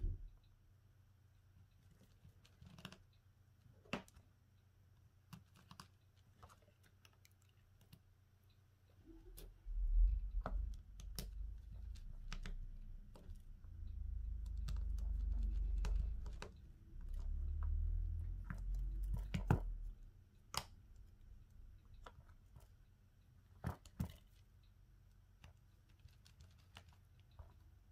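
Scattered small clicks and taps of hand tools and plastic phone parts being handled during a smartphone screen replacement, with a low rumble of bumping and handling from about 9 s to 20 s in.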